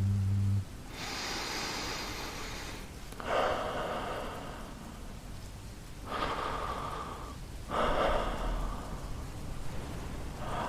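A man's low hummed note trails off just after the start. Then come about four slow breaths, each a second or two long, close to the microphone, over steady rain.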